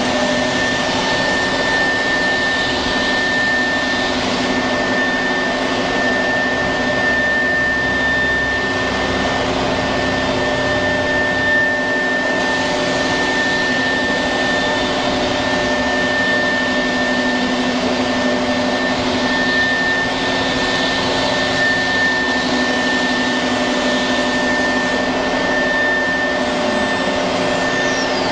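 Automatic-tool-changer CNC router running as its spindle works over a wooden board: a steady rushing machine noise with a high whine held throughout. Near the end a fainter whine falls in pitch.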